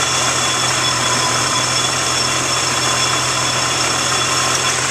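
Supercharged Nissan 350Z 3.5-litre V6 idling steadily, with a steady high whine over the engine note.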